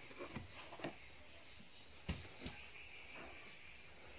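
A few soft knocks and taps, the loudest about two seconds in, over a faint steady high hiss.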